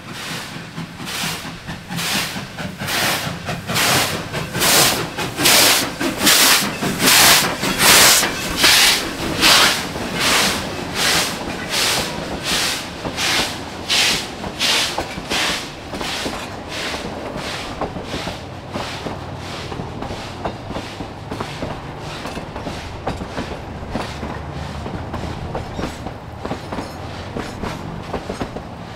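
Narrow-gauge K-36 2-8-2 steam locomotive No. 480 working past at close range, its exhaust chuffing about twice a second, loudest near the middle and fading as it moves away. After that its passenger coaches roll by with a steady rumble and clickety-clack of wheels over rail joints.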